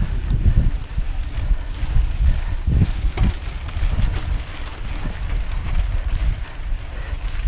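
Wind buffeting the microphone of a bike-mounted action camera as a mountain bike rides fast over dirt singletrack, with a steady rumble from the knobby tyres and frequent sharp knocks and rattles from the bike over bumps.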